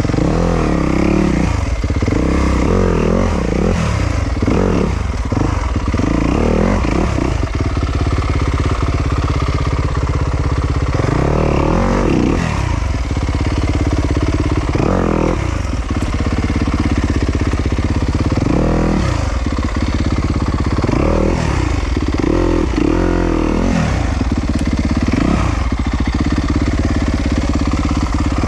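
Yamaha YZ250FX dirt bike's single-cylinder four-stroke engine revving up and down over and over as it is ridden off-road, the pitch rising and falling every second or two with short bursts of throttle.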